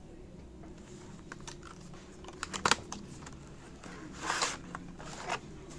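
Cardboard retail box of a portable hard drive handled and opened by hand: a quick cluster of sharp clicks and taps about two and a half seconds in, then a brief scraping rustle of packaging a little after four seconds and a shorter one near the end.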